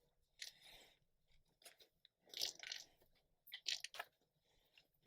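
Faint, irregular crunching about once a second: cattle chewing their feed close by.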